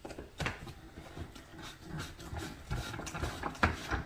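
Irregular plastic clicks and knocks of vacuum cleaner tools and hose parts being handled and fitted together, with one louder knock near the end.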